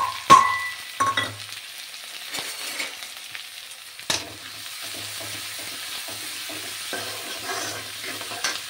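Chopped onion, garlic and green chilli sizzling in hot oil in a steel kadhai, stirred and scraped with a metal ladle. At the start there are a couple of sharp metal clinks as steel utensils strike the pan, one ringing briefly.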